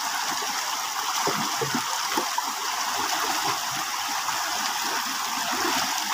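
Steady rushing of a rain-swollen, muddy stream flowing fast over rocks.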